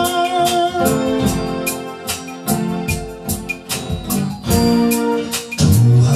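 Instrumental break in a soul song: piano and organ chords over a steady drum beat, no singing.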